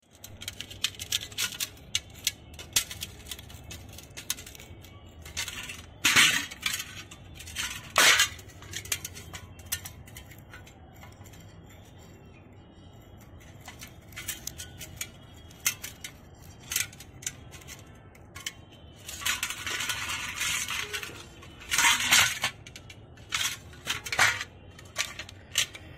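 Metal clicks, clinks and knocks of a carburetor being handled and taken apart over a metal tray, with louder knocks about 6, 8 and 22 seconds in. There is a rasping scrape for about two seconds near 19 seconds.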